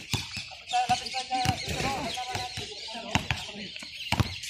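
Basketball dribbled on an outdoor court, its bounces as scattered sharp thumps, under players' voices calling out.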